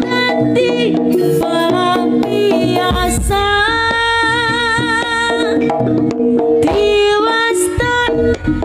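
Live Javanese jaranan music: kendang hand drums beating under a melody of long held, wavering notes.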